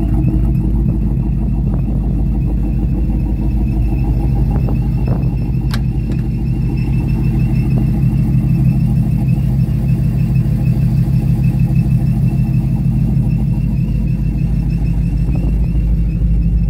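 Supercharged 6.0 LS V8 of a 1955 Chevy step-side pickup idling steadily, with a faint steady high whine above the low engine note and a single sharp click about six seconds in.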